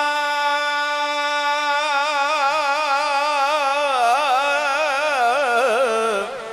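A male naat reciter's voice, unaccompanied, holding one long sung note. The pitch is steady at first, then wavers in widening ornamental runs from about two seconds in, and it sinks and fades near the end.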